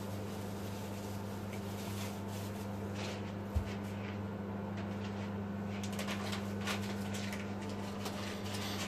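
A cat chewing corn kernels, with short wet clicks and crunches coming thick and fast in the second half, over a steady low hum. One soft thump about three and a half seconds in.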